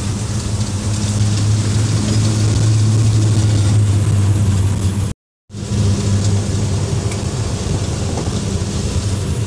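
Truck engine heard from inside the cab while driving, a steady low drone with road noise. It cuts out for a moment about five seconds in, then carries on.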